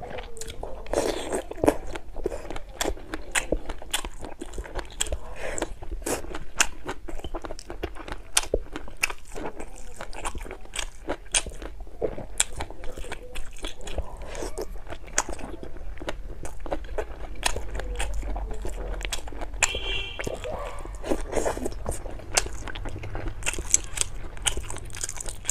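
Close-miked chewing and biting, a steady run of short, sharp mouth clicks as soft food is eaten.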